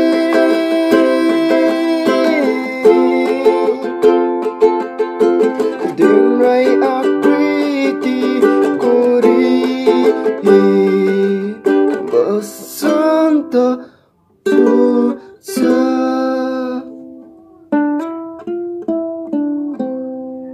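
Ukulele strummed in chords, with a brief stop about two-thirds of the way through. Near the end a few single notes are picked one after another, the last left ringing and fading.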